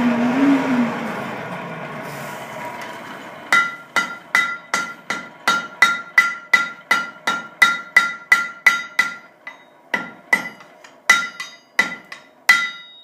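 Blacksmith's hammer striking a hot iron strap hinge on the anvil to forge-weld it: rapid blows about two and a half a second, each with a ringing anvil tone. The blows pause briefly about two-thirds of the way in and resume a little more sparsely. Before the hammering starts, a few seconds of fading rushing noise.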